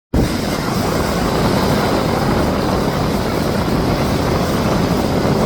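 Canadair CL-415 water bomber's twin turboprop engines running, a steady loud drone.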